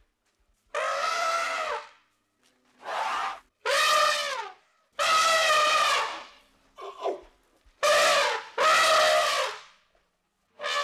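An elephant trumpeting: about seven loud, brassy blasts, each around half a second to a second long, with brief silences between them.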